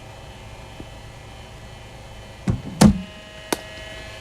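A delivery from a cricket bowling machine being played with the bat over a steady background hum: a dull thump, then the loudest sound, the knock of the bat meeting the ball, and a sharp click a moment later.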